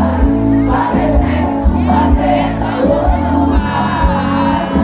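Live sertanejo concert music over a PA: singing voices over a band with a steady, heavy bass beat, with the crowd audible.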